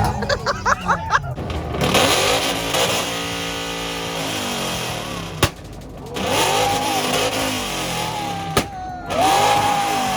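Car engines revving hard, rising and falling in pitch, with two sharp bangs about three seconds apart.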